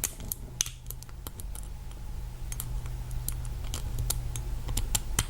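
Small, irregular metallic clicks and scratches from a lock pick and tension wrench working a Master Lock lockout safety padlock, over a steady low hum.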